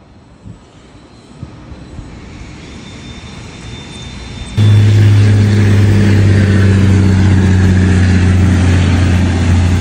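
Volkswagen Amarok V6 turbodiesel with a full stainless aftermarket exhaust (downpipe and diffuser), its exhaust rumbling. A faint rising rumble is followed, about halfway through, by a sudden switch to a loud, steady, deep drone at constant revs.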